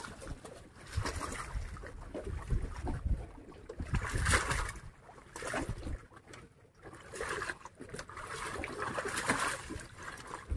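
Water splashing and trickling around a boat, rising and falling in irregular surges, with scattered knocks.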